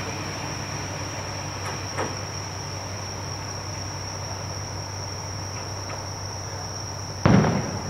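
Night insects chirring steadily in one unbroken high trill. A faint bang comes about two seconds in, and a loud firework boom from an aerial shell bursting near the end.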